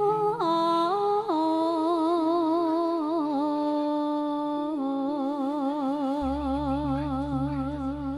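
Female Javanese sinden-style vocal holding long, drawn-out sung notes that step downward in pitch, the last one held for about four seconds with strong vibrato, over sustained electronic keyboard accompaniment. A steady low bass note comes in about six seconds in.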